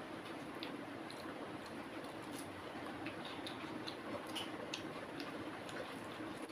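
Fingers mixing and mashing rice with boiled egg on a plate, giving faint, irregular small clicks and soft squishes over a low steady hum.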